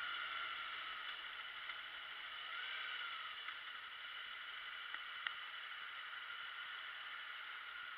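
Motorcycle riding noise as picked up by a camera mounted on the bike: steady wind and road hiss with a faint wavering whine, easing off a little as the bike slows for red lights. Two small clicks about five seconds in.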